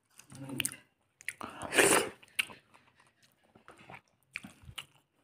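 A person chewing and biting food close to the microphone, with one loud crunch about two seconds in, followed by scattered small mouth clicks.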